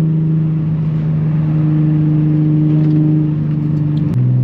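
Nissan 350Z's 3.5-litre V6 running on the move through an exhaust fitted with test pipes, holding a steady note. The note drops suddenly to a lower steady pitch near the end.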